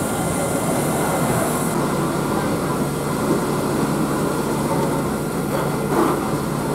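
Fire engine's engine and water pump running with a steady rumble, with the hiss of a fire hose spraying water that stops about two seconds in.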